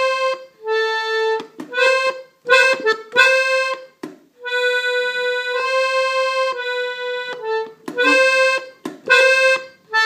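Gabbanelli button accordion in F playing a single-note melody on the right-hand treble buttons, in short phrases separated by brief pauses, as a slow step-by-step demonstration.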